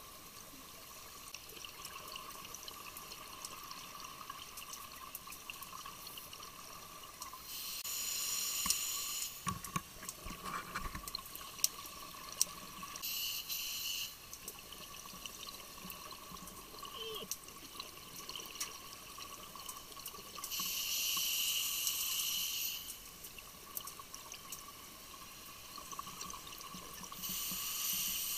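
Scuba regulator breathing heard underwater: four bursts of exhaled bubbles, several seconds apart, over a faint steady tone.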